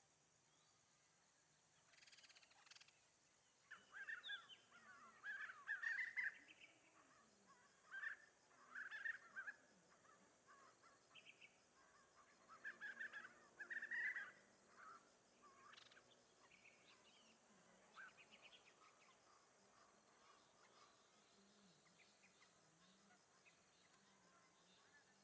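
Birds calling in three clustered bouts of short chirping calls, then fainter scattered calls, over a faint steady high hiss.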